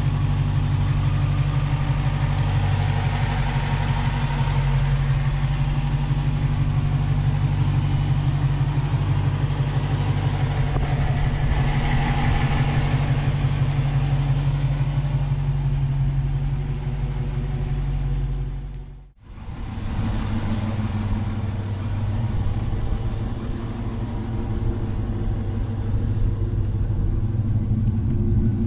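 Dodge Challenger R/T's Hemi V8, fitted with an open cone-filter cold-air intake, idling steadily. The sound briefly fades out about two-thirds of the way through, then the idle carries on.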